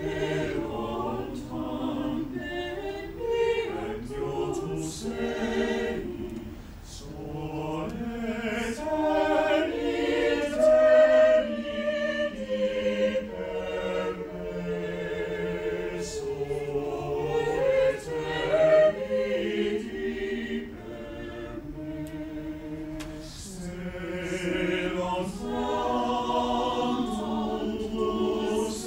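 Small mixed chamber choir of about ten voices, women and men, singing a cappella in harmony, entering together right at the start.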